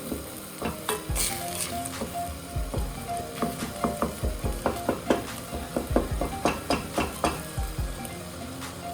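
Utensil stirring minced lamb and onions in a hot frying pan, knocking and scraping against the pan many times, most busily in the middle, with the food sizzling.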